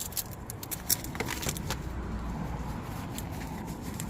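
Scattered light metallic clicks and clinks of hand tools and suspension parts being handled, over a low steady hum.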